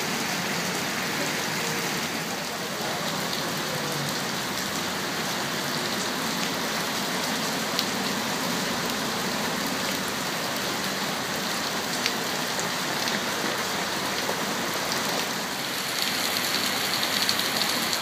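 Heavy rain pouring onto paved street and pavement, a steady hiss of downpour and splashing that grows a little louder near the end.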